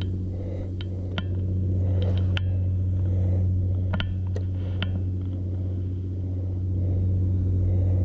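Boat engine idling with a steady low hum, with a few sharp little clicks and knocks scattered through it.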